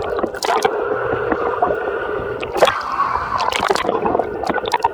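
Wave pool water sloshing and splashing close by, with several short splashes.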